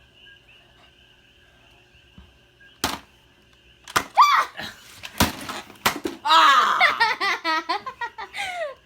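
Four sharp pops of Nerf blasters firing, spread over about three seconds, with a shriek among them. Loud, breathless laughter follows in the last few seconds.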